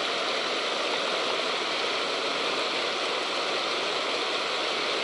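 Steady rush of river water pouring over a low concrete weir and splashing down among the concrete blocks below it, an even, unbroken sound.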